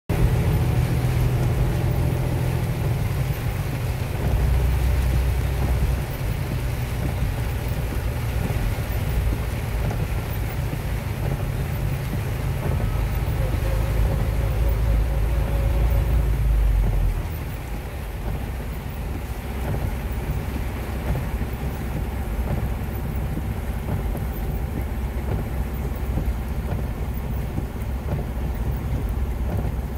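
Severe thunderstorm heard from inside a car: heavy rain beating on the windshield and roof over a deep rumble. The rumble drops off sharply a little past halfway, leaving a steady rush of rain.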